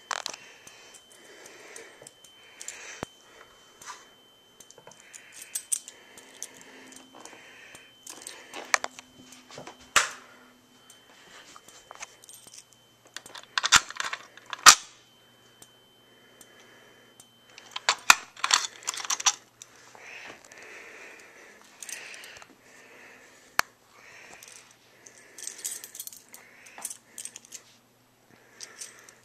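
Clicks and clatters from a Simplex manual fire alarm pull station being handled and worked with its reset key. A faint steady high whine runs underneath and stops about two-thirds of the way through.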